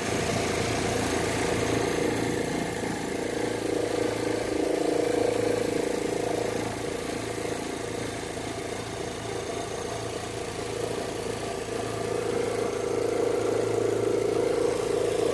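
Chevrolet Zafira engine running steadily at idle with the air conditioning on, with a steady noise from the alternator belt; the owner is unsure whether it is normal.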